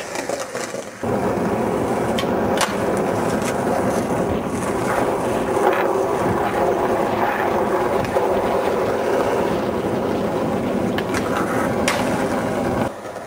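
Skateboard wheels rolling on smooth concrete: a steady rumble that stops suddenly near the end, with a few sharp clacks of the board, one just before the rolling stops.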